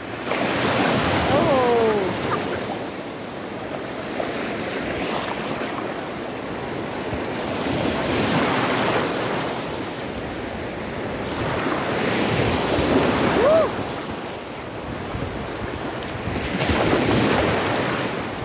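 Ocean surf breaking and washing in at the shoreline, rising and falling in about four swells, with wind on the microphone.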